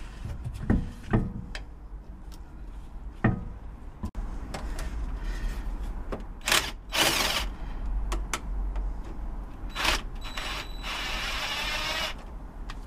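Cordless drill spinning out the driveshaft flange bolts in short bursts, with a longer run near the end, after a few clicks and knocks of a spanner on the bolts early on.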